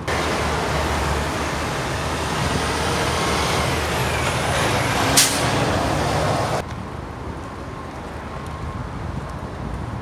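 Busy street traffic with heavy diesel vehicles running, with one brief sharp noise about five seconds in. It cuts off suddenly after six and a half seconds to quieter open-air background noise.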